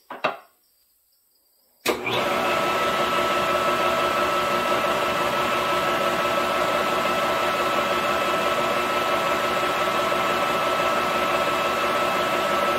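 Near silence, then about two seconds in a 72-year-old Colchester Master lathe starts up with a sudden clunk and runs steadily, its chuck spinning, with a steady whine over the motor's hum.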